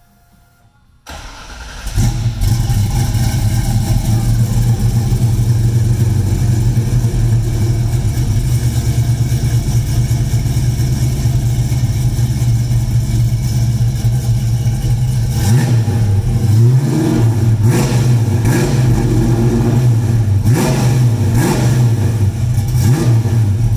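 1967 Ford Mustang with Holley Sniper fuel injection, heard through its JBA exhaust system. The engine starts about a second in and idles steadily. In the last several seconds it is revved in several short blips, each rising and falling back to idle.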